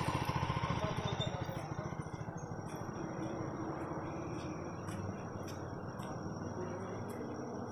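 Motorcycle engine running as it rides past and away, its sound fading over the first two or three seconds into a lower steady rumble.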